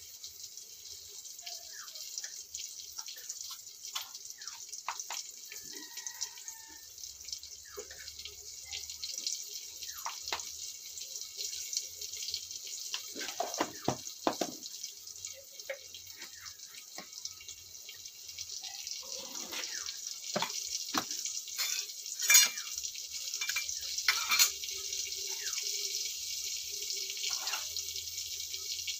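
Water splashing and dripping as it is handled in plastic and steel containers, in many short scattered splashes, busiest in the middle and a few seconds later. Near the end water is poured from a plastic jug into a steel container.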